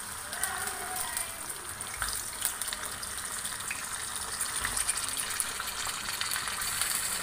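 Raw chicken pieces sizzling and crackling in hot oil in a non-stick karahi, getting gradually louder as more pieces are laid in.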